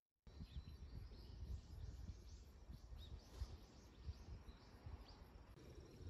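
Faint outdoor ambience: small birds chirping in short, scattered calls over a low, uneven rumble.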